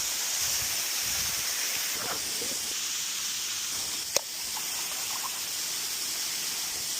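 Steady rushing hiss of a waterfall, with a single sharp click about four seconds in.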